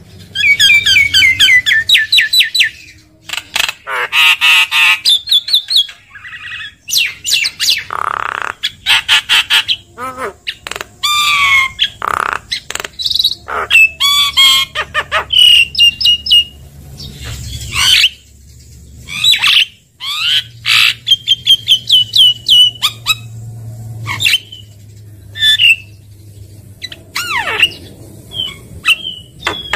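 Javan myna (jalak kebo) singing loudly and continuously: quick runs of repeated short notes, falling whistles and harsh squawks, with many brief pauses.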